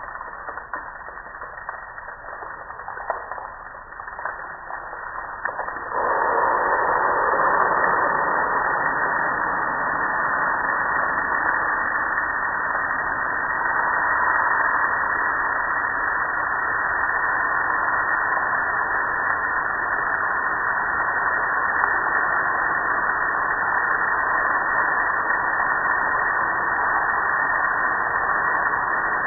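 Water spraying onto a gas grill and running off its lid: a steady hiss, quieter and broken for the first few seconds, then louder and even from about six seconds in.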